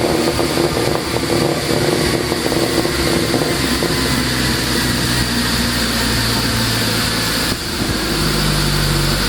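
Exhaust of a 2015 VW CC with its 2.0 TSI turbocharged four-cylinder, tuned for pops and crackles. It crackles and pops irregularly over the first few seconds, then settles to a steady idle, and the engine note rises slightly about eight seconds in.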